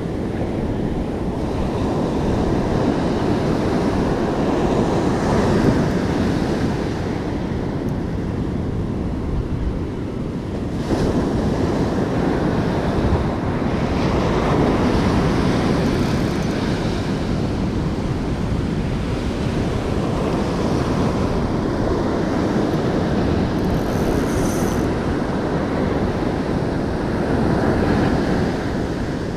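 Ocean surf breaking and washing up the beach in a continuous, swelling rush, with wind buffeting the microphone.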